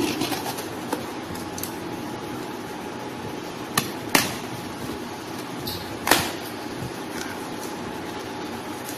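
Taped cardboard shipping box being pulled open by hand: a few sharp snaps and crackles of cardboard and packing tape, at the start, around four seconds in and around six seconds in, over steady background noise.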